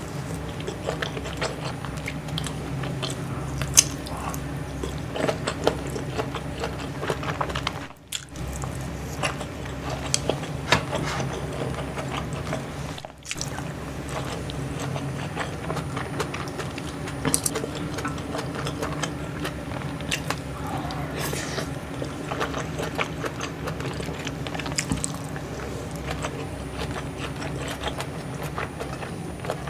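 Close-miked eating sounds: biting and chewing on kimchi stew, rolled omelette and sausage, with many short sharp clicks and crunches over a steady low hum.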